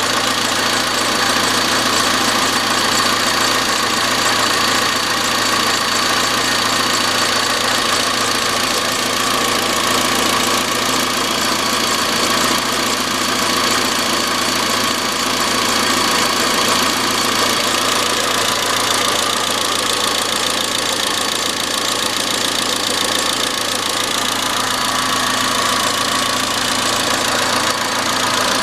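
Iran Khodro Samand's 1.6-litre 16-valve TU5JP4 four-cylinder engine running steadily at idle with a metallic knocking from the engine.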